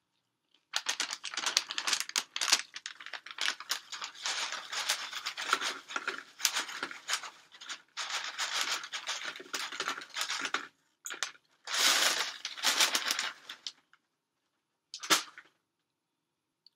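Close crunching and crinkling of tortilla chips being handled and chewed, in dense stretches broken by short pauses. A single sharp knock comes near the end.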